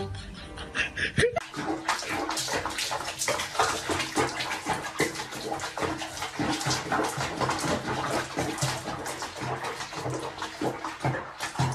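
Water splashing and sloshing in a plastic basin where a cat is sitting in sudsy water, a busy run of small irregular splashes starting about a second in.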